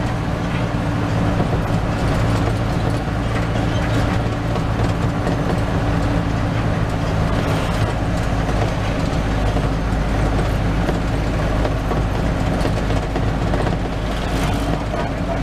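Medium bus's engine running steadily while the bus drives along, heard from inside the cabin, with a low, even engine hum over road noise.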